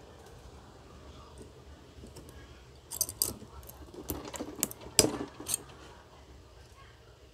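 Pliers tearing spot-welded nickel strips off 18650 lithium-ion cells: a run of about seven sharp metallic clicks and snaps, the loudest about five seconds in, after a few quiet seconds.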